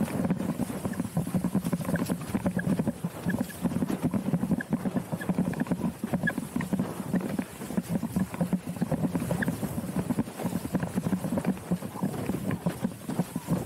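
Fanatic Falcon 106 TE slalom windsurf board planing at speed, its hull chattering and slapping rapidly and unevenly over small chop, with water rushing beneath.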